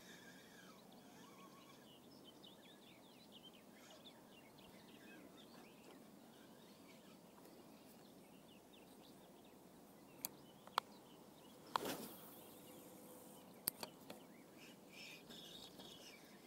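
Faint bird chirps over quiet open-air ambience. Past the middle come a few sharp clicks and a brief swish from handling a spinning rod and reel.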